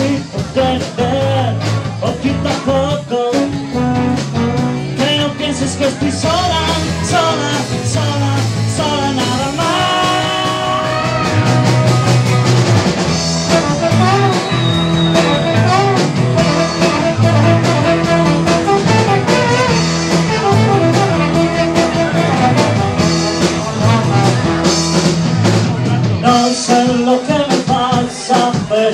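Live band playing 1960s-style rock and roll with guitar, bass and drums, a trombone carrying melody lines during an instrumental break.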